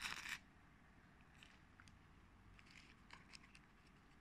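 Packaging crinkles and rustles as it is handled, with a short burst at the start. After that come only faint, scattered small clicks and rustles.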